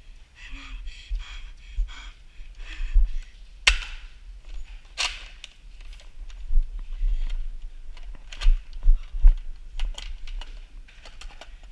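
Footsteps and knocks from a body-worn camera being carried around, with two sharp snaps about four and five seconds in.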